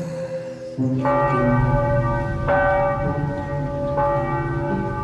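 A church bell tolling slowly: three strokes about a second and a half apart, starting about a second in, each ringing on, over a steady drone.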